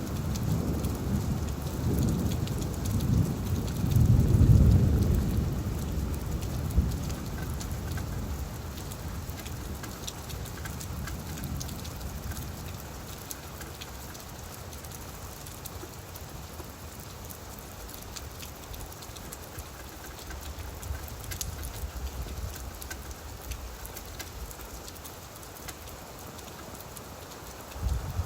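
Steady rain falling on leaves, an even hiss with scattered drop ticks. A low rolling rumble of thunder swells a few seconds in and fades away, leaving the rain alone.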